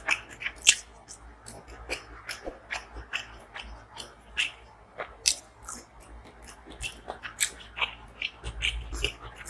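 Close-miked chewing and biting of food: many short, irregular crunches and wet mouth clicks.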